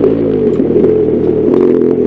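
BMW R1200GS Adventure's boxer-twin engine running under way, its pitch dropping at the start as revs fall, then climbing again near the end.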